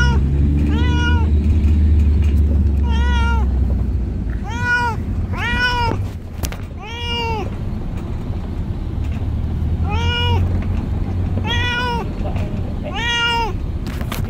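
A cat meowing again and again, about nine drawn-out meows a second or two apart, each rising and falling in pitch. Under them runs the low rumble of a car cabin, loudest in the first few seconds.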